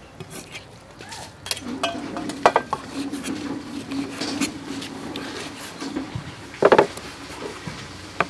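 A cleaver slicing beef kidney on a wooden chopping board, with a few sharp knocks of the blade against the board; the loudest comes about two-thirds of the way through. A steady low hum runs underneath from about a second and a half in.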